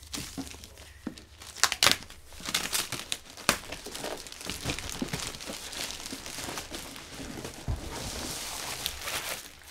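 Clear plastic wrap crinkling and rustling as it is pulled and worked off by hand, with a few sharp crackles, the loudest about two seconds in.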